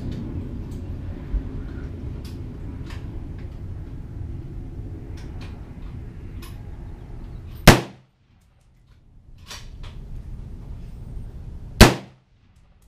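Two shots from a DPMS Panther Arms Oracle AR-15 in .223/5.56, about four seconds apart, each a sharp crack after which the sound cuts out briefly. Fainter, more distant shots come in between.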